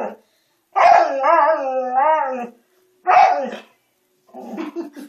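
Husky howling: a long wavering howl about a second in and a shorter one around three seconds, then a run of short choppy vocal sounds near the end. It is the whiny, crying kind of howl rather than a full song.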